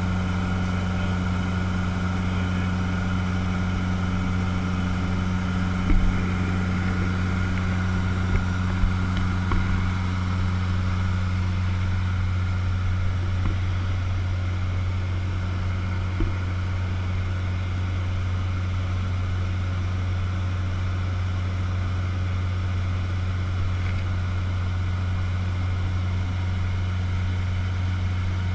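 Cessna 150's four-cylinder Continental O-200 engine and propeller droning steadily at cruise power, heard from inside the cabin, with a low, even hum that does not change. A few brief knocks stand out over it about six seconds in and a little later.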